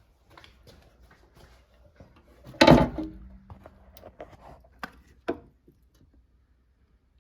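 Knocks and clicks of the glove box lid and its hinges being handled on a VW Beetle dash. One loud knock comes about two and a half seconds in with a short ring after it, then a few sharp clicks.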